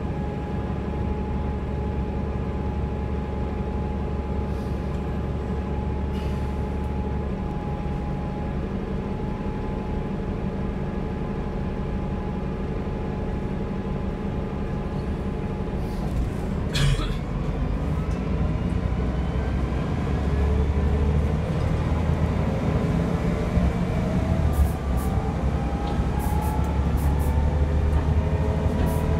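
Bus engine and drivetrain heard from inside the passenger saloon, running steadily at first. About halfway through there is a single knock, and then the engine and transmission whine climbs steadily in pitch as the bus gathers speed, with a few light rattles from the interior.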